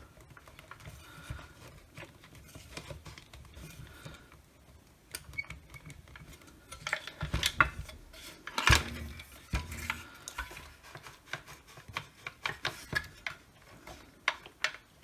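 Handling noise from a cordless circular saw being worked apart by hand: clicks and knocks of the plastic housing and motor against each other and the work mat, a louder knock a little past halfway, and a quick run of rattling clicks near the end.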